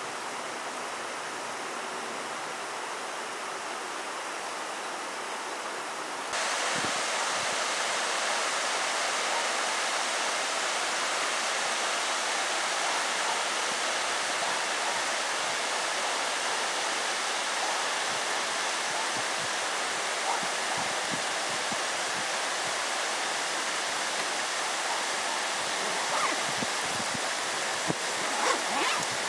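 Steady rushing noise that steps up louder about six seconds in, with a few faint clicks near the end.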